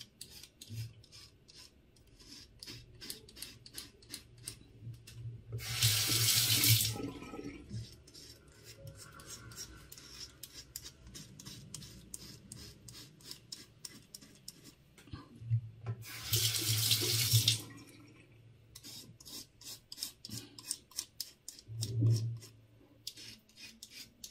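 Gillette Sensor 3 cartridge razor scraping through several days' stubble in many short strokes, one after another. Twice a tap runs for about a second and a half as the blade is rinsed, and there is a short thump near the end.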